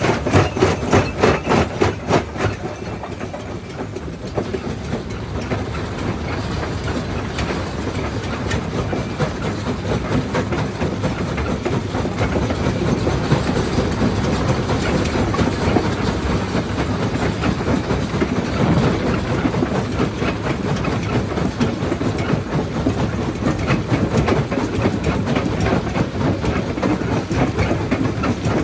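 Primary jaw crusher running and crushing rock: a continuous, dense clatter and grind of stone. For the first two seconds or so there is rapid, regular knocking, about four knocks a second.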